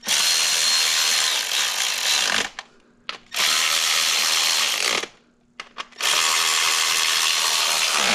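Milwaukee power tool running in three bursts of about two seconds each, snugging bolts down.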